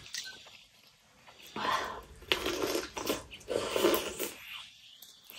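Close-miked eating sounds: slurping and lip-smacking as a steamed chicken momo is sucked at and bitten into. They come in three short bursts, about one and a half, two and a half and three and a half seconds in.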